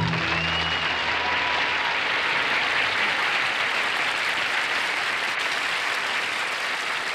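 Studio audience applauding steadily after a folk song, the last low chord of the double bass and acoustic guitar ringing out and fading in the first second or so.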